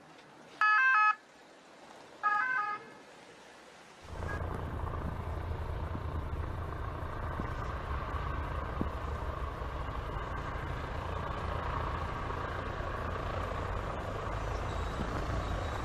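Two short, loud two-tone warning blasts from a vehicle, about a second and a half apart. Then, from about four seconds in, a parked rescue helicopter running: a steady engine-and-rotor noise with a deep rumble.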